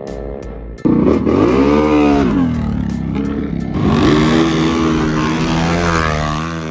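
Off-road vehicle engines revving hard: an engine cuts in suddenly about a second in, its pitch climbing and falling, then surges again near four seconds and holds a high, steady note before easing off near the end.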